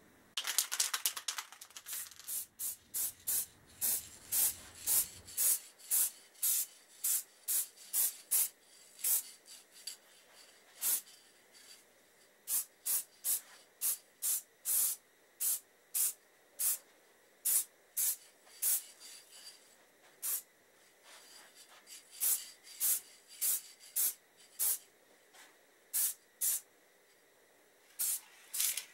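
Aerosol spray can of gloss black engine enamel hissing in many short bursts, roughly two a second with a few brief pauses, as a light dusting coat goes onto an engine sump.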